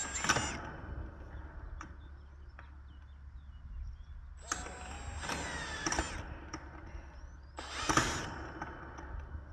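Cordless drill driving screws through cattle panel into the wooden greenhouse frame: three short runs of the motor whine, at the start, about halfway and near the end, each dropping in pitch as the screw bites.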